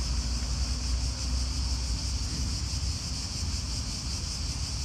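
Wind rumbling on the phone's microphone, over a steady, high-pitched insect chorus.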